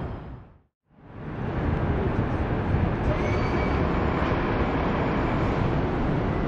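City street ambience: a steady rumble of traffic. It fades out to silence just before a second in and fades back up over the next second.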